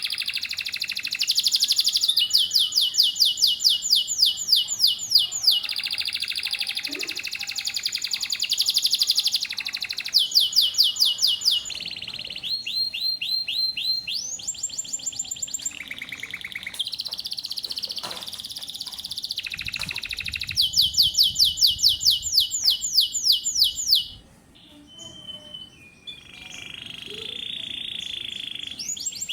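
Domestic canary singing a long, varied song made of fast trills, each phrase a rapid run of repeated high notes, the phrases changing every few seconds. The song is quieter and sparser for a few seconds near the end.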